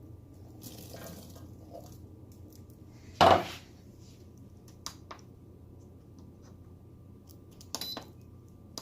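Kitchen clatter of dishes and utensils being handled: one loud clank about three seconds in, then a few light clicks and a short rattle near the end.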